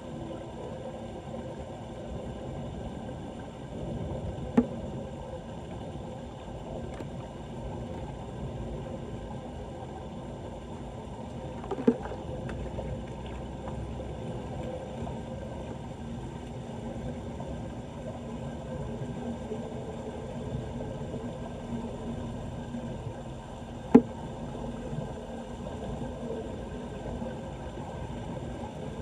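Steady low rushing of flood water draining, with three sharp knocks several seconds apart, the last one the loudest.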